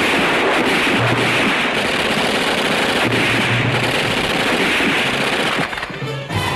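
Automatic gunfire in a firefight: dense, continuous rattling shots that ease off briefly near the end.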